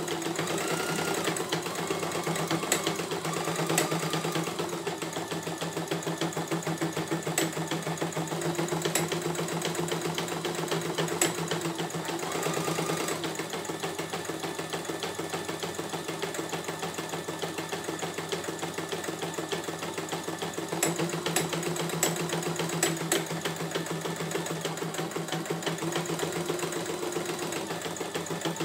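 CNY E900 portable embroidery machine stitching a design: a rapid, steady needle rhythm over a motor hum, with scattered sharp ticks as the hoop carriage moves the fabric. It runs a little quieter for several seconds in the middle, then picks up again.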